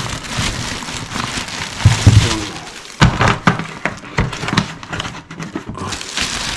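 Plastic bags rustling and crackling, with a few knocks, as bagged food is handled.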